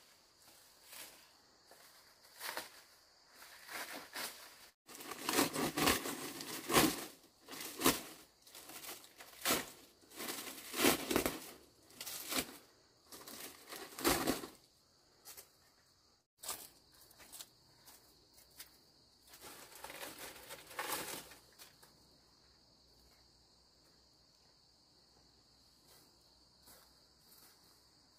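Bouts of rustling and crinkling, as of something being handled, over a steady high-pitched insect chirring that is left on its own near the end.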